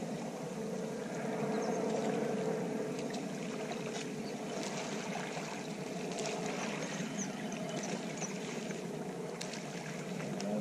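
Steady hum of a distant motorboat engine, heard over light wind and water noise, with a few faint clicks.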